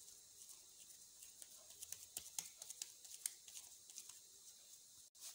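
Faint wet, sticky clicks and smacks of moist hands pressing and rolling soft rice-flour pitha dough into a ball, thickest around the middle.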